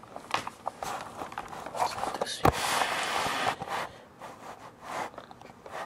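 White plastic bag rustling and crinkling as it is handled and moved, with one sharp knock about two and a half seconds in; the rustling dies down to a few soft taps near the end.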